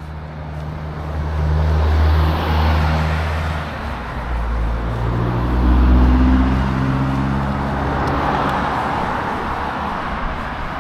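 Motor vehicles driving past close by: engine tones and tyre noise swelling to a peak about two seconds in and again around six seconds in, then staying steady.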